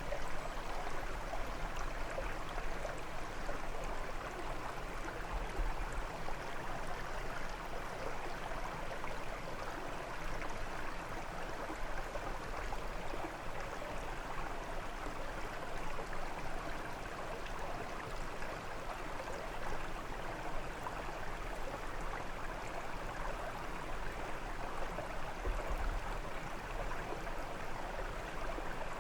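Brook water running and splashing over stones: a steady rushing and burbling.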